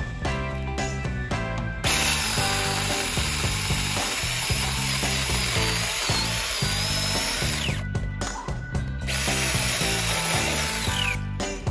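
Cordless mini chainsaw (TEETOK, Makita-compatible) cutting through a tree trunk in two runs, a long one from about two seconds in and a shorter one near the end. Each ends with the motor's whine dropping away as the trigger is let go.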